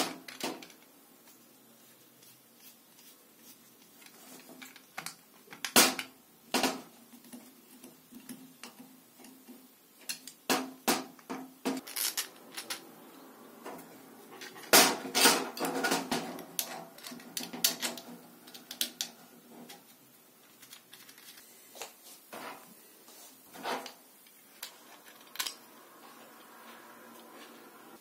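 Irregular clicks, taps and clatter of small 3D-printed plastic parts and steel screws being handled and fitted together by hand on a metal bench. About halfway through comes a busier run of rattling.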